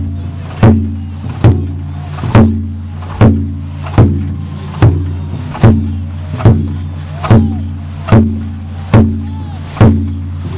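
Dragon boat drum beating the paddling stroke, loud sharp beats a little more than once a second, in time with the crew's paddles, over a steady low hum.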